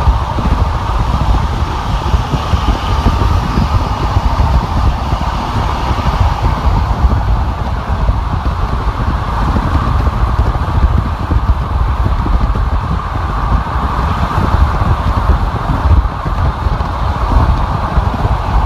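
Steady road noise of a car driving on a freeway: a constant deep rumble with a hiss of tyres and wind over it.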